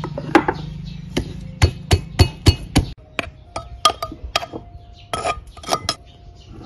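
Metal pestle pounding garlic cloves and green chilies in a terracotta clay mortar: a run of sharp knocks, roughly two to three a second, some of the later ones with a short metallic ring.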